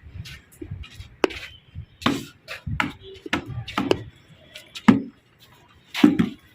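A series of irregular sharp knocks, a few close together, with the loudest two near the end.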